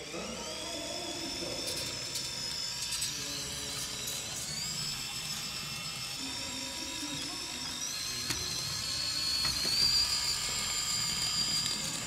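Small electric motor and gearing of a 1/32-scale RC model vehicle whining as it drives. The high whine starts suddenly and steps up in pitch twice, once around the middle and again near the end.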